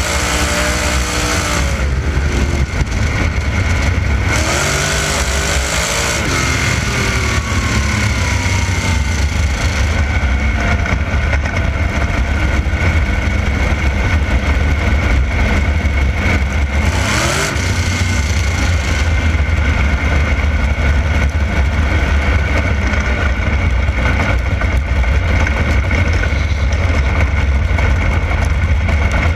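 A 360 sprint car's V8 engine running flat out at racing speed, heard from on board the car. Its pitch rises and falls several times as the throttle comes on and off.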